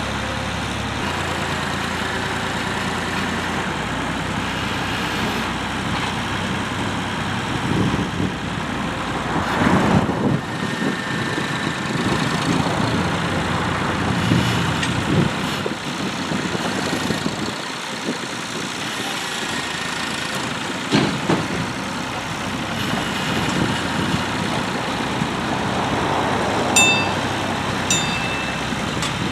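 A heavy engine running steadily, with a few brief knocks over it.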